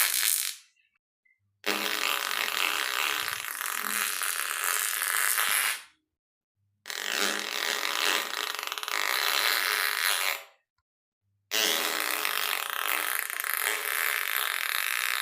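Fart sound effects played one after another: three long, hissy, raspy farts of about four seconds each, separated by short silent gaps, after the tail end of another one at the start.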